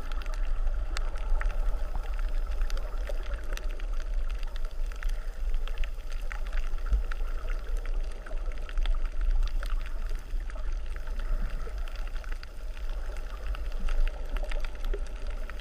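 Underwater reef sound heard through a camera's waterproof housing: a low rumble of wave surge and churning water, with a constant fine crackle of small clicks over it.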